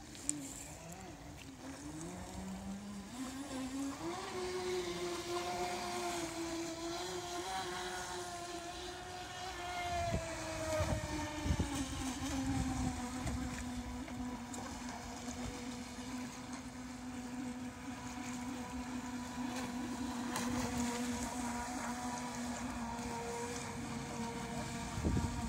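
Electric brushless inrunner motor of a radio-controlled fibreglass V-hull speedboat whining as the boat runs across the water. The pitch wobbles low at first, climbs a few seconds in, then settles a little lower and holds steady. Wind gusts on the microphone about ten seconds in and again near the end.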